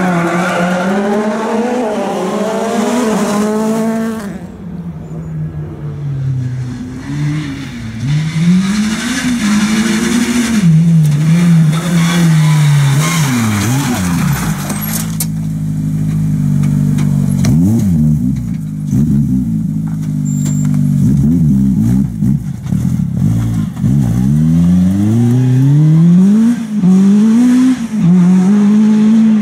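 Rally car engines driven hard, among them a Ford Fiesta WRC and a Honda Civic Type R, one car after another: revs climb through each gear and drop sharply at every shift and corner entry.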